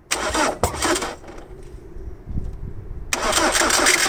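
A Ford 2.0 TDCi four-cylinder common-rail diesel is cranked on the starter in two short bursts of about a second each. Air and then diesel spit out of the injector's high-pressure line nut, which has been left loose to bleed the airlock from the line.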